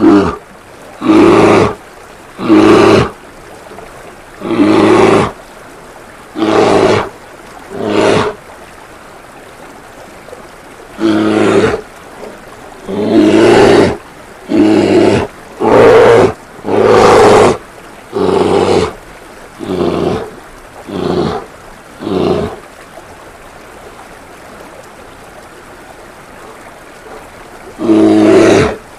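A bear roaring, about fifteen short roars in quick succession, then a pause of about five seconds before one more near the end, over a steady faint hiss.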